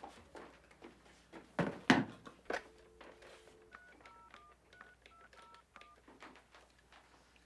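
A few knocks and rustles as rolled paper is handled on a wooden desk, then a telephone's dial tone for about a second, followed by a quick string of touch-tone (DTMF) keypress beeps dialing a number.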